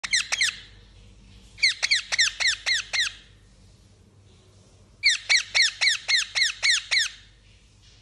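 Rose-ringed (Indian ringneck) parakeet calling in quick runs of high, falling notes, about six a second: a short run of three, then a run of about seven, a pause, and a longer run of about nine.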